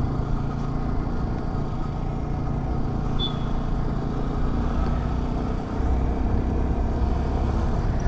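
Motorcycle engine running steadily while riding, over road noise, its low note shifting slightly about six seconds in. A short high chirp sounds about three seconds in.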